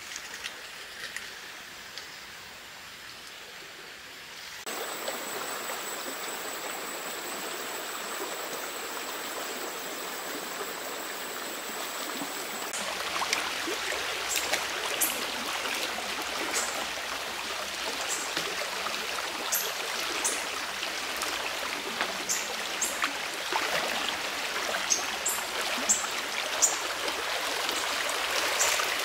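Shallow stream flowing, an even rushing water noise, louder and brighter in the second half as a person wades through it and works a dip net, with many small splashes and sharp water ticks. Before that, a few seconds of faint forest ambience, then a steady thin high tone over the water noise for several seconds.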